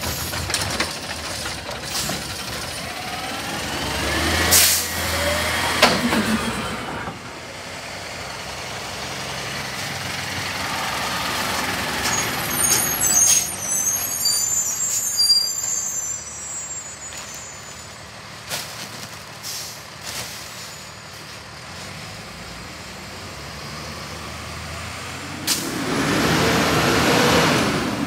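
Garbage trucks working curbside carts: an automated side-loader's hydraulic arm lifting and dumping a cart with clattering thumps, diesel engines revving to drive the hydraulics, and sharp air-brake hisses.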